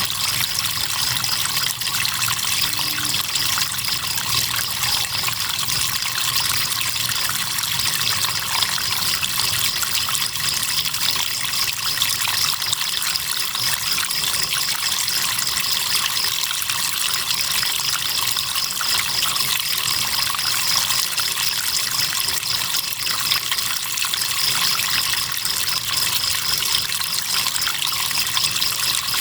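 River water trickling and flowing steadily, with crickets chirping in a continuous high, rapidly pulsing trill.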